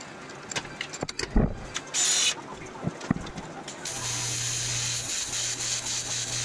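TIG welding arc on aluminum strip: a steady buzzing hiss with a low hum under it, starting about four seconds in and breaking off briefly about a second later. Before it, a few knocks and clanks and a short burst of noise as the piece is handled in the vise.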